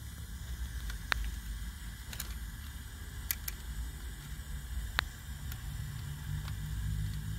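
Butane soldering iron melting solder onto a fuse-box fuse link: about five sharp crackles from the heated flux and solder over a low steady rumble.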